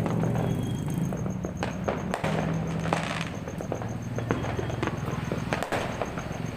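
Fireworks and firecrackers going off around the neighbourhood: many sharp pops and cracks at irregular intervals, over a steady low hum.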